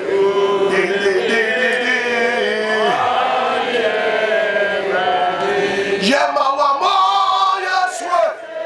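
A man singing a slow worship chant into a handheld microphone, drawing out long held notes. He breaks off about six seconds in and starts a new phrase.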